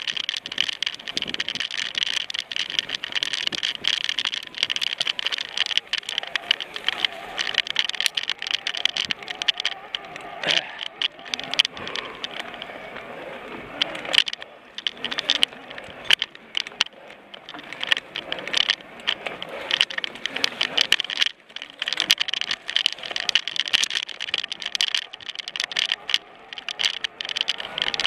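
Mountain bike rattling and clattering over a bumpy dirt singletrack: a dense, irregular run of clicks and knocks from the bike and its gear. A steady high-pitched buzz runs underneath and thins briefly about halfway through.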